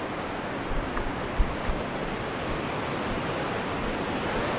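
Rushing white water of the Seti river rapids: a steady dense roar of churning water, with a few dull bumps about a second in.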